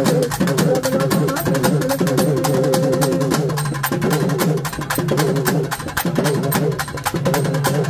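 Tamil temple-procession drum band playing a fast, dense rhythm of drum strokes, with wavering pitched tones running underneath and one note held steady for the first three seconds or so.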